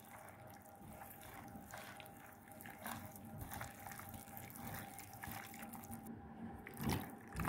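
Faint wet squelching of a hand kneading raw fish slices in a sticky egg and cornflour marinade in a glass bowl. The squishes come irregularly and are a little louder near the end.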